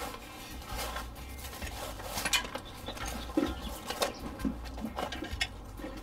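Rubber bicycle inner tube being pulled out from between the tyre and rim: irregular rubbing and scraping, with a few scattered light knocks.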